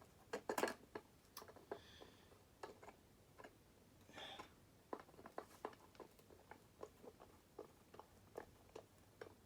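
Faint, irregular small clicks and taps, with a couple of brief scrapes, from hands fitting bent wire ends onto a lamp socket's terminal screws.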